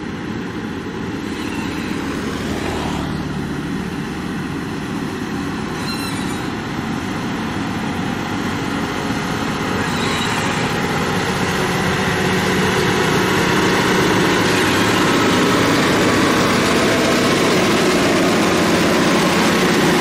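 Diesel engine of a LiuGong motor grader running steadily under load as it spreads gravel, growing gradually louder through the second half.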